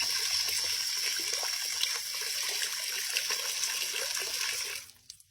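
Water running in a steady rush, which dies away shortly before the end.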